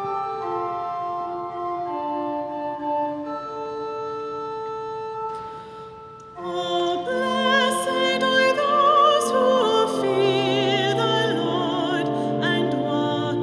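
Church organ playing held chords as an introduction, then a solo singer with strong vibrato comes in over the organ about six seconds in.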